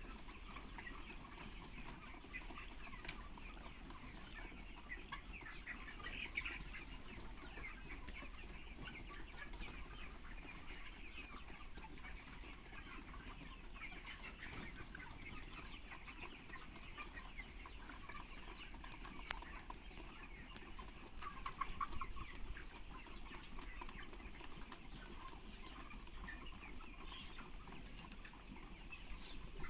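A large flock of 35-day-old broiler chickens chirping and clucking all at once, a constant chatter of many birds. A few louder calls stand out about six seconds in and again around twenty seconds in.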